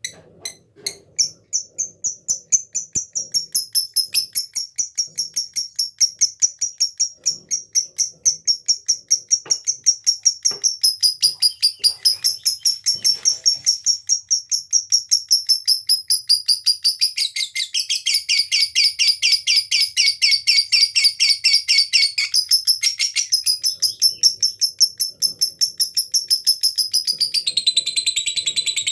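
Lovebird giving a long, unbroken ngekek: a fast run of shrill, evenly repeated notes, several a second, with no pause. Partway through, the notes turn fuller with a lower tone added, and near the end they step down in pitch.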